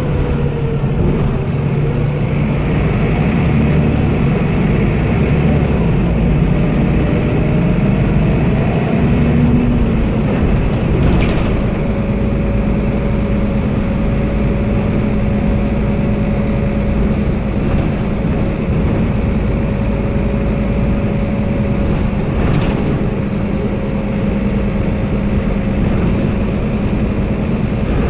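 Van Hool NewA330 city bus with ZF gearbox driving, heard from inside the passenger cabin: the engine note shifts up and down in pitch for the first ten seconds or so, then settles into a steady hum with a steady whine above it as the bus cruises. Two faint knocks come through, about eleven and twenty-three seconds in.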